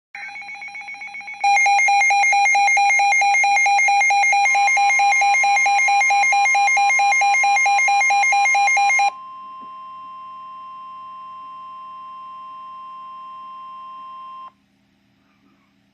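Emergency weather alert tones: a fast warbling electronic alarm, quieter for about the first second and loud after that, is joined about four seconds in by a steady single-pitch tone, the NOAA Weather Radio warning alert tone. The warble cuts off about nine seconds in. The steady tone holds alone for about five more seconds and then stops.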